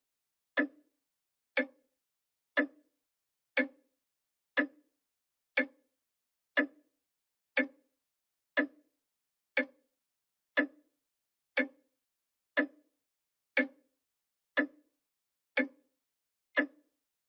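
Grandfather clock ticking steadily, one crisp tick about every second.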